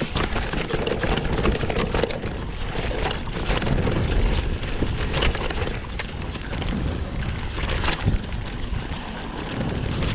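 Mountain bike riding fast down a dirt trail: the tyres rumble over the ground, and the bike rattles and clicks over the bumps throughout.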